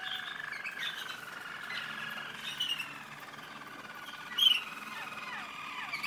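German Roller canaries singing: a continuous, rolling trill held low in pitch, with short higher chirps over it, the loudest about four and a half seconds in.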